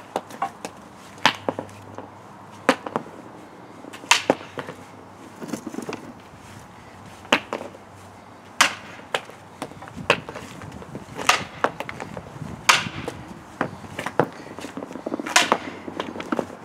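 Hockey stick shooting pucks off an asphalt driveway: a sharp crack about every one and a half seconds, with smaller clacks in between.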